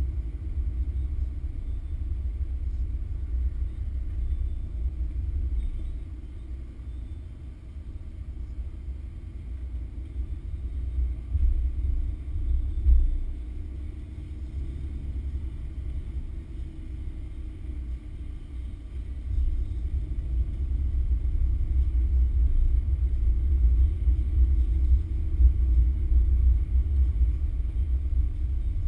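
Car driving on a wet road, heard from inside the car: a steady low rumble of engine and road noise. It eases off for a few seconds about six seconds in, with a couple of louder bumps near the middle.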